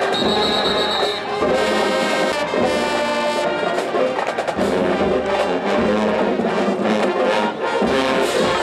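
A marching band's brass section playing in long, held notes, with no gaps.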